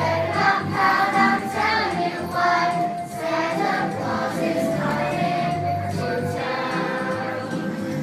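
A Christmas song sung by a group of children's voices together with backing music.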